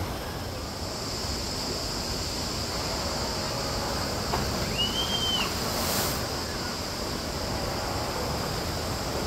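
Steady outdoor rushing noise with a short high chirp about five seconds in and a brief click about a second later.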